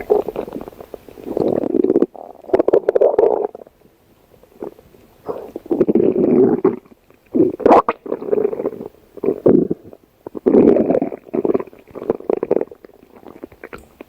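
A person's stomach growling: a series of gurgling, crackly rumbles in bursts of a second or two, with short pauses between them.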